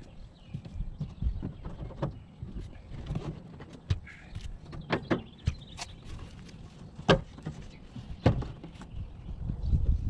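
Irregular knocks and clicks of hands working on a rooftop air conditioner's plastic cover, with the sharpest knocks about five, seven and eight seconds in, over a low rumble.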